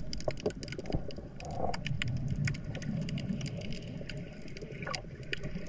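Water heard underwater: a low churning rumble with many sharp clicks and crackles scattered through it, and a few short gurgles.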